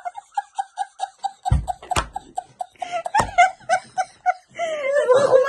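Two women laughing hard, in a long run of rapid ha-ha pulses, about five a second. A few dull thumps come through about one and a half, two and three seconds in. Near the end a voice breaks into louder, drawn-out laughter.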